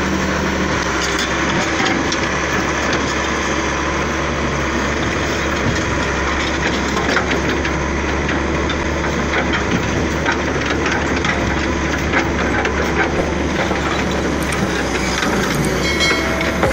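Heavy excavator's diesel engine running steadily, with scattered knocks and clanks from the machine at work.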